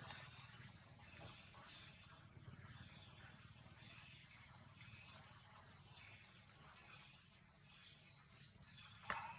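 Insects chirring steadily in a high, even band, over a low background rumble; a single sharp click just before the end.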